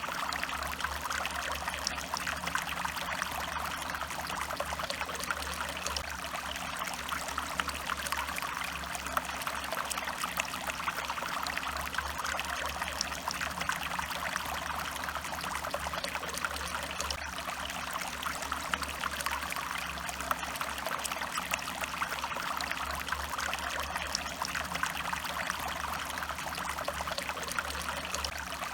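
Small stream flowing steadily, with a continuous trickling and babbling of water full of tiny splashes.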